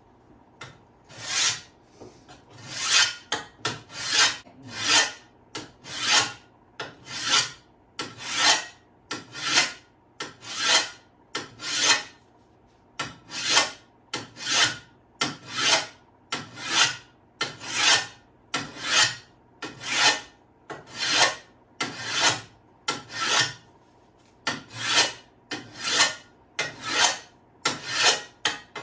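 Metal hand file rasping along the edge of a steel shovel blade in a steady rhythm of strokes, a little more than one a second, beginning about a second in: the shovel is being sharpened.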